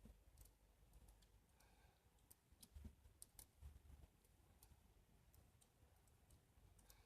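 Faint, irregular clicking of a combination lock's number discs being turned notch by notch by thumb.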